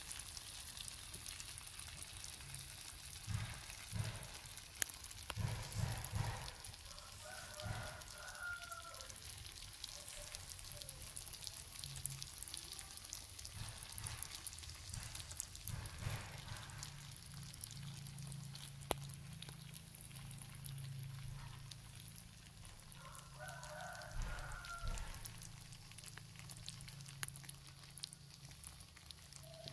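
Faint sizzling of beef cooked down in sweet soy sauce in the pan, with a few soft knocks in the first several seconds. A rooster crows faintly twice, about a quarter of the way in and again about three quarters in, and a low steady hum comes in about halfway.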